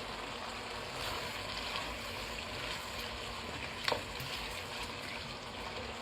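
Goat meat with spices and tomato paste cooking in a pot, a steady sizzling hiss, with one sharp clack about four seconds in.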